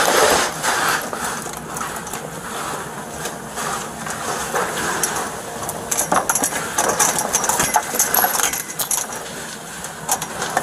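Heavy steel link chain clinking and rattling on dirt as it is shaken and dragged, in many short metallic clicks that come thickest in the second half. A broad scuffing noise comes right at the start, and a steady rushing noise runs underneath.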